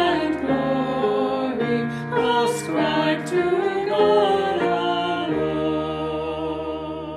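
A hymn sung with instrumental accompaniment over a steady low bass, reaching its closing line, 'and honor, pow'r, and glory ascribe to God alone'. The last chord is held from about five seconds in and fades toward the end.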